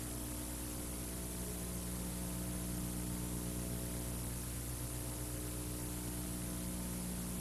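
Steady electrical mains hum with a constant hiss: recording noise with no other sound, no brad-nailer shots.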